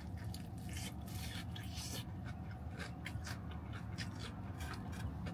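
A person biting and chewing crispy battered fried chicken: many small, irregular crunches and wet mouth clicks over a steady low hum.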